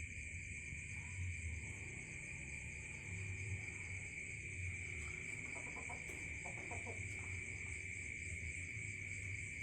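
Steady, unbroken chorus of crickets trilling, with a low rumble underneath.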